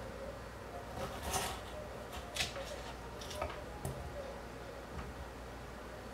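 Knife cutting through peeled potatoes onto a bamboo cutting board: a handful of soft, scattered cuts and taps.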